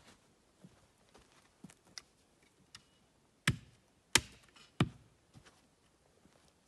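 Axe chopping a wooden stick on a stump chopping block: three sharp strokes about two-thirds of a second apart, past the middle. Faint footsteps and small ticks come before them.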